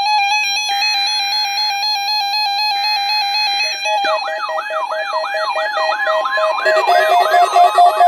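Several NOAA weather alert radios sounding their alarms together for a Required Monthly Test: layered steady, pulsing electronic beeps, with two short bursts of the SAME data header in the first half. About halfway in, a siren-like sweep joins, rising and falling about two or three times a second.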